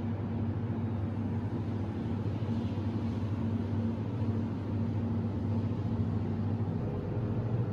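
Steady low mechanical hum of running machinery, holding a few steady low tones without a break.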